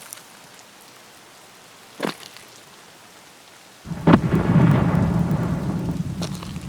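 Steady rain falling, with a sharp crack of thunder about four seconds in that rolls on as a low rumble, slowly fading.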